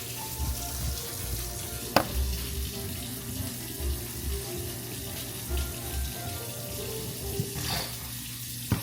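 A steady water-like hiss with irregular low thuds. A sharp click comes about two seconds in, and another just before the end.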